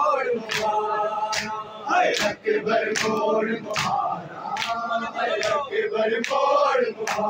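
Male mourners chanting a noha together in a wailing unison melody, with a steady beat of hand strikes on the chest (matam) about twice a second.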